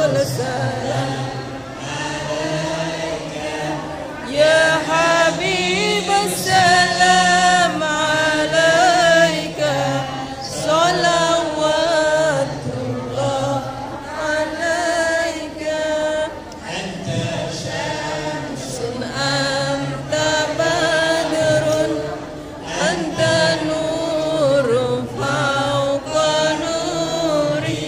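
Group of voices chanting a devotional Islamic chant in long, held melodic phrases that rise and fall without a break.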